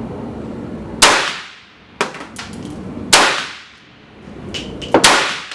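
M1 carbine firing .30 Carbine Tula steel-case rounds: three sharp shots about two seconds apart, each with a short ringing tail. Fainter metallic clinks come between the shots.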